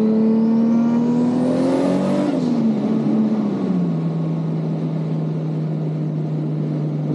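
Mark IV Toyota Supra's 2JZ inline-six pulling under acceleration, its pitch climbing with a high whine rising alongside. About two and a half seconds in the revs drop, and the engine settles to a steady lower note.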